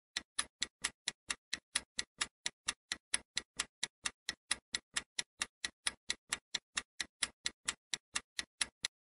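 Countdown-timer ticking sound effect, clock-like ticks at about four a second, stopping just before the end.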